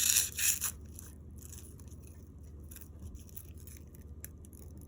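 Scissors cutting through the stiff, foam-like casing of a praying mantis egg case: a few loud crunching snips in the first second, then fainter scattered snips and scrapes.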